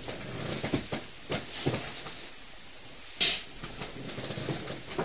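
A few faint, short knocks and clicks, scattered irregularly, with one brief hiss about three seconds in.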